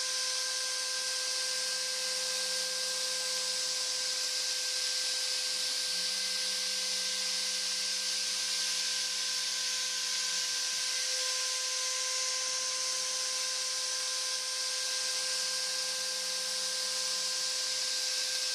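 CNC router's spindle router running at steady speed while its cutter mills a groove in quarter-inch polycarbonate sheet: a steady hissing rush with a steady high whine. Under it a lower hum from the machine's axis motors comes in and cuts out three times as the gantry moves and stops along the cut.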